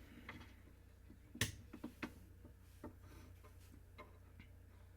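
A scattered series of sharp button clicks, about eight, the loudest about one and a half seconds in, over a faint low hum, as the HollyAnne HU961 EAS endec's buttons are pressed while it is power-cycled in an attempt to reset it.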